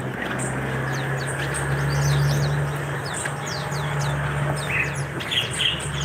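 Many caged songbirds chirping at once, a rapid run of short, high, falling chirps, with lower chirps joining near the end. A steady low hum runs underneath.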